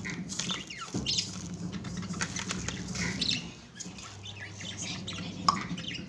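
Lovebirds chirping and squawking in short, high calls. Near the start there is the patter of dry seeds and chickpeas being poured into a plastic feed tray.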